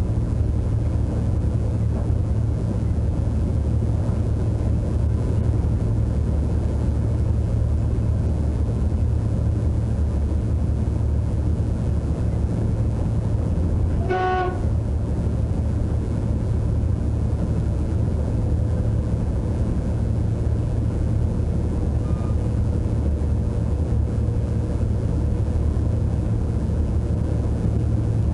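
Steady low running rumble of a train heard from inside the driving cab as it travels along the track. About halfway through, a short high beep-like tone sounds once.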